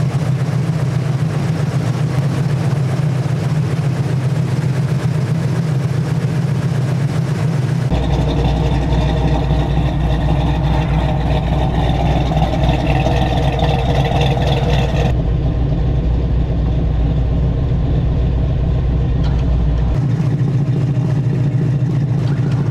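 A vehicle engine running steadily, its tone shifting abruptly about 8, 15 and 20 seconds in, heavier and deeper in the middle stretch.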